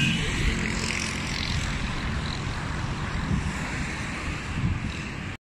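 Wind buffeting a handheld phone's microphone: a steady low rushing noise that cuts off abruptly just before the end.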